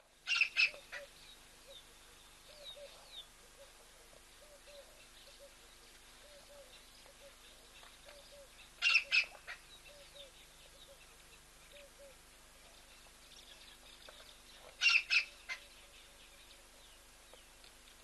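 Birds calling: a loud burst of two or three sharp, high calls three times, about six seconds apart, over faint, steady small chirping.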